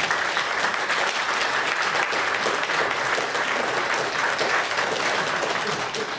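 Audience applauding at the end of a song: dense, steady clapping that begins to die down near the end.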